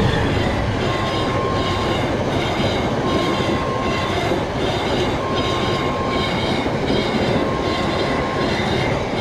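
A KAI CC 206 diesel-electric locomotive and its passenger coaches roll past close by in a steady, loud rumble of wheels on rail. Over it, the level crossing's warning alarm repeats a single tone, about a second on and a second off.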